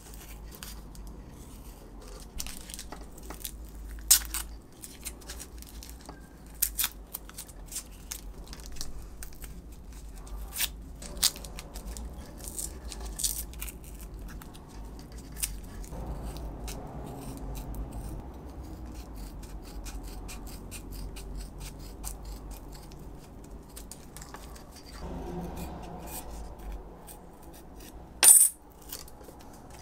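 Scissors snipping and masking tape crinkling as tape wrapped around a knife blade is trimmed and pressed down, with scattered small clicks and taps of tools on a wooden board. One loud sharp click near the end.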